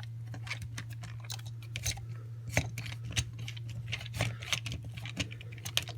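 A screwdriver driving an outlet's metal mounting screw into the electrical box, giving a run of small, irregular clicks and scrapes.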